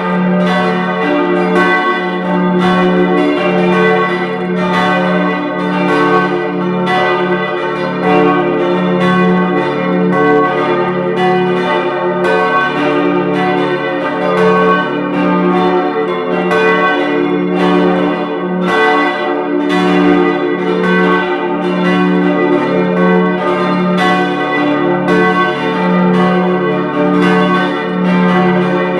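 Full peal of four church bells tuned d', f-sharp', a' and b', ringing together: a continuous run of overlapping strikes, several a second, over their lingering hum.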